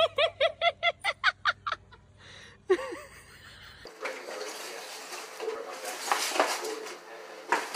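An animal gives a rapid run of about a dozen short, high-pitched calls, about five a second, then one more call a second later. After that a plastic bag crinkles and scrapes as it is dragged across a wooden floor with a cat inside it.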